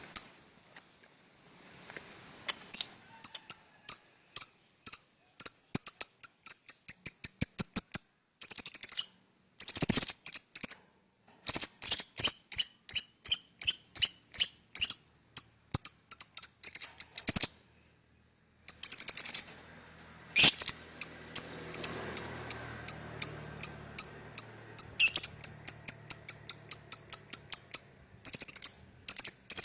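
Fischer's lovebird chattering in long runs of rapid, shrill chirps, several a second. The runs begin a couple of seconds in and break off once for about a second past the middle.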